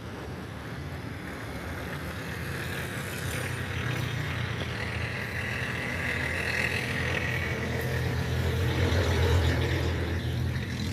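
Road vehicle engine rumble with traffic noise. The low rumble slowly swells to a peak a couple of seconds before the end and then eases off.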